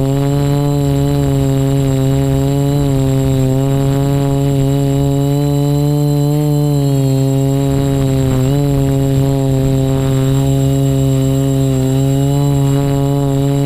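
Quadcopter's electric motors and propellers humming steadily in flight, heard from the camera on the craft. The pitch wavers slightly as the throttle is adjusted, with small dips about three and eight seconds in.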